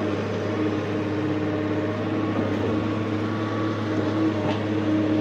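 JCB JS175 excavator running steadily, heard from its cab: a low engine drone with a steady whine held above it while the arm swings back from the truck.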